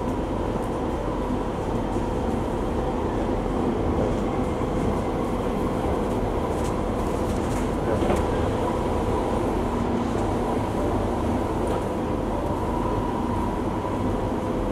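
Singapore MRT train heard from inside the carriage while running: a steady rumble of wheels on rail with a couple of steady humming tones held throughout.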